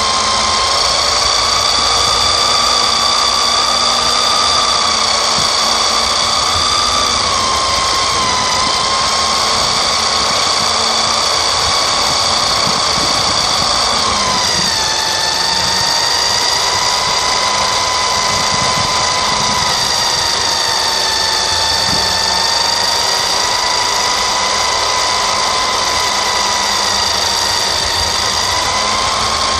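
Electric motor and gears of a vintage Nikko Dictator II RC buggy whining steadily at speed, heard close up. The whine dips briefly about a quarter of the way in, then drops lower about halfway through.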